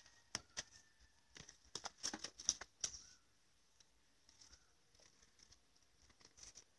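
Faint handling noise: a quick run of short rustles and clicks in the first three seconds, then a few scattered ones, as a biogas plant's flexible gas hose is moved against its plastic covering.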